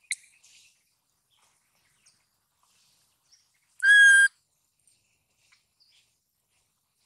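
Infant macaque giving a single high, whistle-like coo call, one steady note about half a second long, near the middle. It is the call of a lone infant left by itself. A sharp tick comes right at the start, with faint scattered chirps and ticks around the call.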